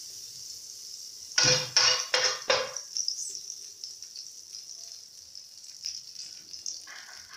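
Margarine sizzling steadily in a hot metal frying pan, with a metal spoon scraping across the pan in four quick strokes about one and a half to three seconds in.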